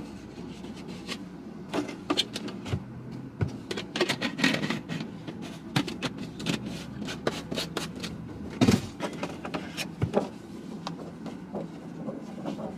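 Clicks, taps and plastic crinkling as a plastic bottle and a packet of wet wipes are handled, with two louder knocks near nine and ten seconds in. A steady low hum runs underneath.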